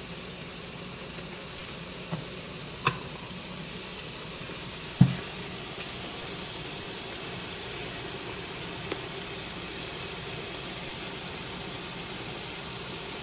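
Steady hiss of an aluminium tiered steamer steaming rice cakes on a gas stove, with a few sharp knocks, the loudest about five seconds in.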